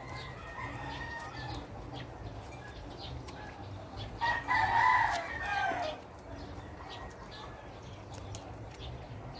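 A rooster crows once, about four seconds in; the call lasts under two seconds and drops in pitch at its end.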